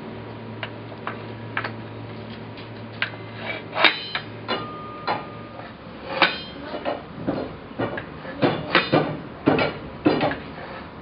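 Steel box car mover clinking and clanking against the rail and the car's wheel as it is levered to pry a railroad car along the track. Light, fairly regular ticks at first, then louder, irregular metal clanks from about four seconds in.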